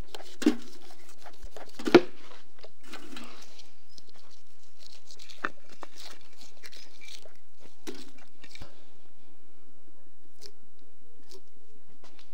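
A knife cutting and tearing the skin off a large silver carp: crunchy cuts with a few sharp knocks, the loudest about two seconds in.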